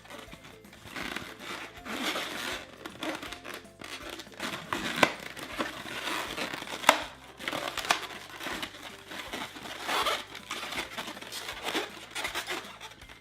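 Inflated 260 latex modelling balloon being twisted and squeezed by hand into a petal, its skin rubbing and squeaking. There are two sharp clicks about five and seven seconds in.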